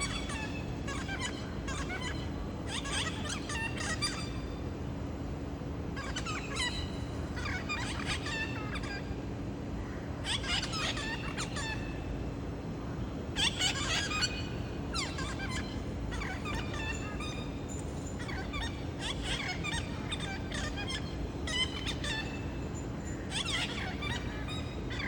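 Parrots calling: clusters of short, chirping calls that come every couple of seconds, over a steady low hum.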